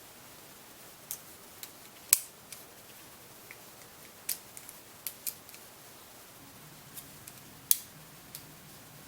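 Sharp metallic clicks and snaps of a Gerber Center-Drive multi-tool being worked by hand, its tools swinging out and locking into place. About a dozen irregular clicks, with two louder snaps about two seconds in and near the end.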